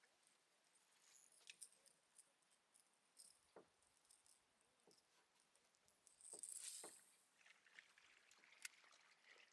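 Near silence, with faint scattered clicks and ticks and one brief soft hiss about six and a half seconds in.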